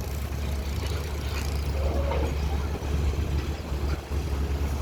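Caterpillar 320 long-reach excavator's diesel engine running with a steady low rumble.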